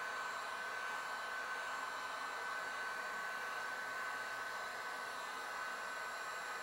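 Heat gun blowing steadily, a constant rush of air with a thin steady whine on top. It is heating a CRT's bonded safety glass to soften the decaying PVA layer so the glass comes free.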